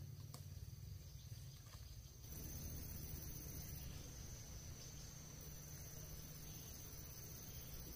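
Faint rural outdoor ambience with a steady high-pitched insect drone. The background changes about two seconds in.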